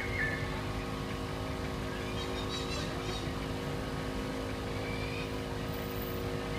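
A steady engine hum with several held tones, unchanging throughout. A few faint high chirps about two and a half seconds in and again near five seconds.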